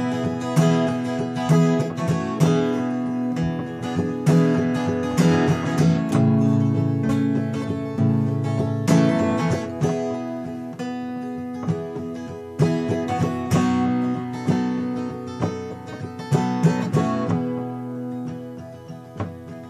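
Steel-string acoustic guitar with a capo, strummed in a steady rhythm through an instrumental passage of chords, getting a little softer near the end.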